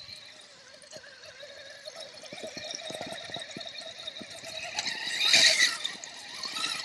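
Electric RC crawler truck (Axial SCX6) driving over rock: a faint, wavering motor and drivetrain whine with scattered small clicks of tyres and chassis on stone, swelling to a louder rush of noise about five seconds in.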